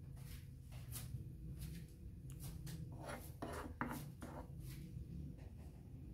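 Metal spoon scraping mashed boiled potato across a wooden cutting board, a run of short irregular scrapes with a few louder ones about halfway through.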